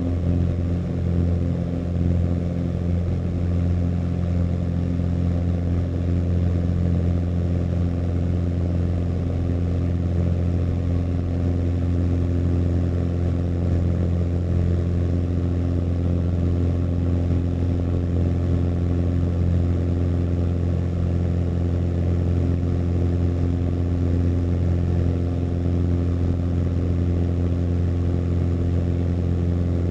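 Cessna 182's piston engine and propeller at full takeoff power, a steady drone heard inside the cabin through the end of the takeoff roll and the climb.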